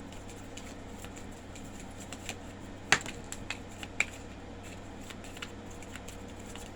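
Tarot cards being handled and laid down on a table: scattered light clicks and taps of card against card and surface, with two sharper snaps about 3 and 4 seconds in.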